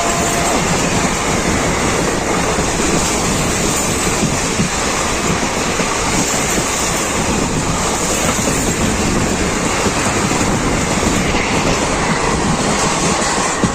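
Steady rumble and rush of a train running on the rails, heard from on board. The tail of another train's horn, falling in pitch, dies away in the first half second.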